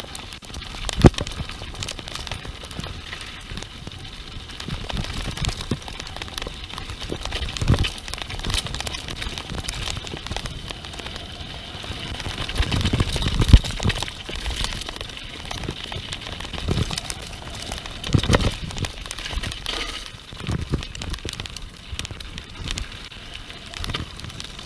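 Mountain bike descending a rough dirt trail, heard through a handlebar-mounted camera: steady crunching and rattling of tyres over dirt and leaves, with sharp knocks as the bike hits bumps. The loudest knocks come about a second in and about halfway through.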